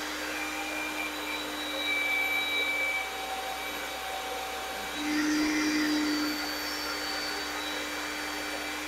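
Corded electric drill running steadily, spinning an engine valve chucked by its stem while a red abrasive scrub pad is held against it to scrub off carbon. The sound grows louder twice, about two seconds in and again about five seconds in.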